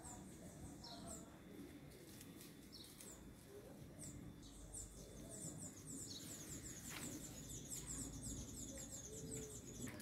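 Small birds chirping: short, high, thin chirps, scattered at first, then a quick run of many chirps in the second half, over a faint low background rumble.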